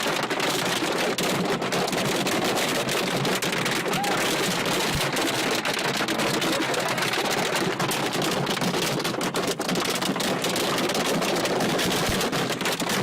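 Hail pelting down hard: a dense, steady clatter of countless stones hitting a surface with no let-up.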